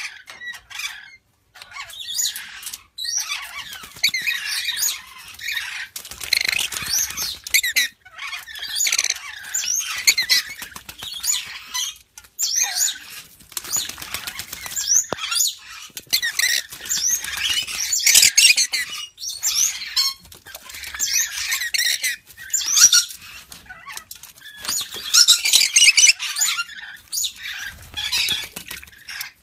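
Yellow-streaked lories chattering and screeching in shrill bouts of a second or so to a few seconds, each full of quick up-and-down squeals, with short pauses between bouts.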